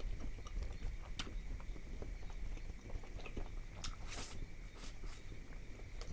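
Close-up chewing of biryani and curry, with wet mouth clicks and lip smacks scattered throughout. There is a brief rustling burst about four seconds in.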